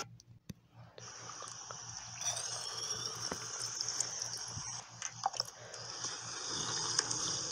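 ASMR eating sounds: close-miked wet mouth clicks and smacks from lips sucking on and biting into a jelly treat, scattered over a steady hiss, starting after about a second of near silence.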